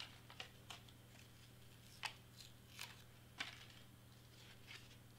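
Faint rustles and a handful of light ticks of cardstock being handled and pressed down by hand, over a low steady hum.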